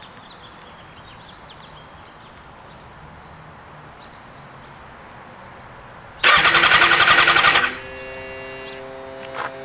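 2009 Kawasaki ZX-6R inline-four cranked and firing loudly about six seconds in, on its first start attempt after a new wiring harness and fuel pump. It runs hard for about a second and a half, then drops to a quieter, steady note.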